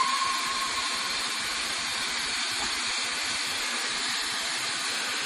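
Steam locomotive blowing off steam: a steady hiss. A lone high whistle tone dies away about a second in.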